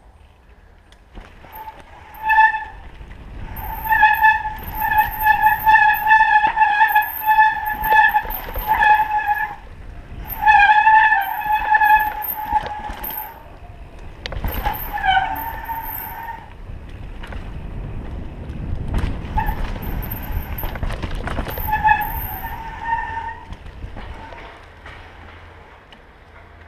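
Downhill mountain bike running fast over a dirt trail: tyre and frame rattle with knocks over bumps, and a disc brake squealing in a steady high tone that comes and goes as the brakes are applied.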